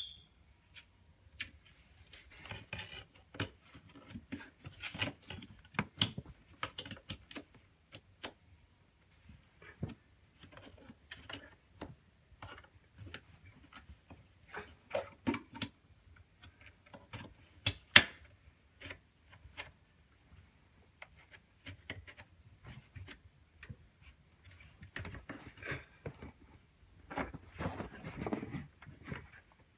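Screws and a smoke detector's mounting bracket being worked by hand with a screwdriver: scattered clicks, taps and scraping. One sharp click a little past the middle is the loudest.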